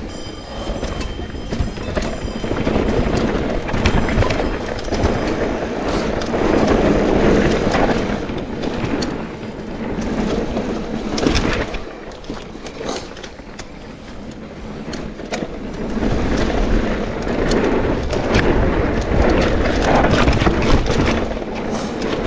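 Mountain bike riding fast down a dirt bike-park trail: tyres rolling and skidding over rough ground while the chain and frame rattle and clatter over bumps. The noise eases for a few seconds about halfway through, then builds again.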